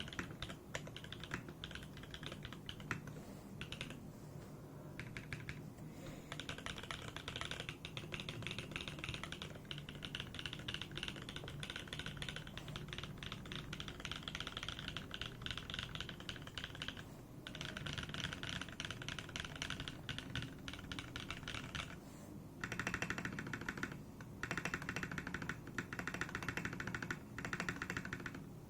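Fast, continuous typing on a Smith + Rune Iron165 mechanical keyboard with lubed Everglide Dark Jade switches, a carbon fibre plate and PBT keycaps. The run is broken by a few brief pauses and stops near the end.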